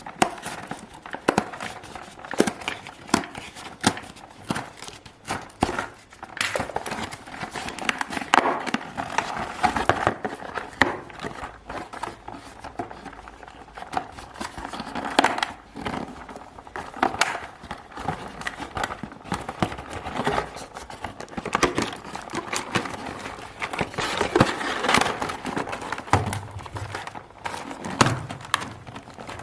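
Kinder Joy eggs being unwrapped and opened: foil wrappers crinkling and crackling, with many sharp clicks of the plastic egg shells and packaging.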